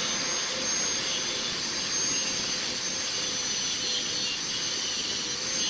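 Angle grinder running under load as its disc grinds into a steel bolt: a steady high whine over an even hiss.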